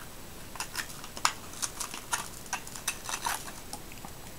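Light, irregular clicks and scrapes of a screwdriver working a badly corroded, crumbling battery out of a smoke detector's battery compartment.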